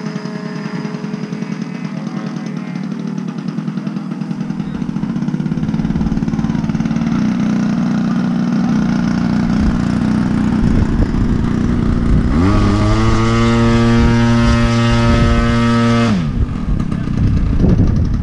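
Gas-powered RC airplane engine running, then throttled up about twelve seconds in to a high steady pitch, held for a few seconds and throttled back down.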